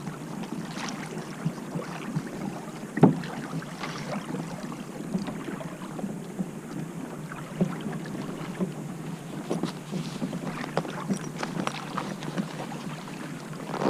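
Water splashing and lapping against a moving kayak's hull, with wind on the microphone and many small scattered ticks. A sharper knock comes about three seconds in.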